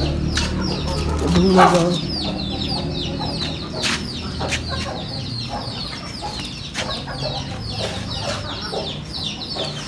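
Chickens in a pen: a steady chorus of quick, high, falling chirps with a few lower clucks near the start, and scattered sharp clicks.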